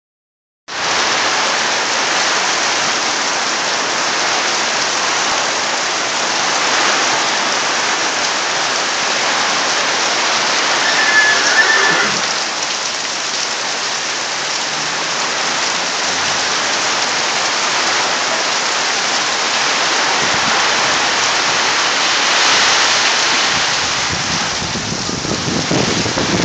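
Heavy rain falling steadily: a dense, even hiss of rain on surfaces. A brief high chirp and a knock come about eleven to twelve seconds in, and a low rumble builds near the end.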